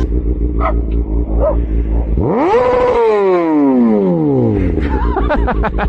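Sport motorcycle idling, then revved hard about two seconds in: the engine note climbs fast to a high pitch, holds for a moment and falls back to idle. A small dog barks a few short times.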